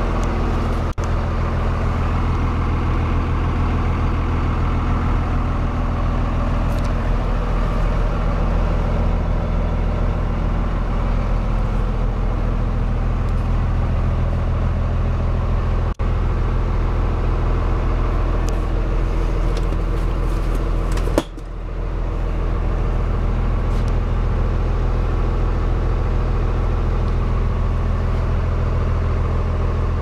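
1999 Blue Bird short school bus's engine idling steadily, heard from inside the bus. A sharp click comes about two-thirds of the way through, and the hum dips briefly before it steadies again.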